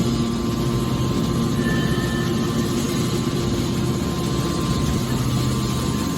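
Hydraulic horizontal metal baler running: a steady mechanical hum with low, even tones and no distinct strokes or impacts.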